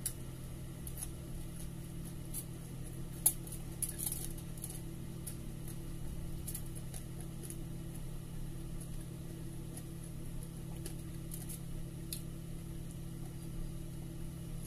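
Eating by hand: scattered small clicks and crackles as fried milkfish is picked apart on aluminium foil and chewed, the sharpest click about three seconds in. A steady low hum runs underneath.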